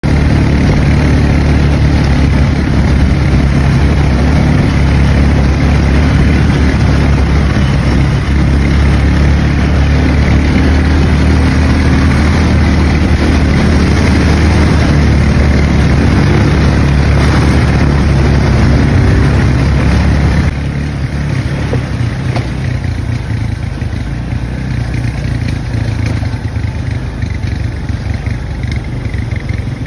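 Quad bike (ATV) engines running steadily in a group, a low even drone. The sound drops noticeably in level about two-thirds of the way through.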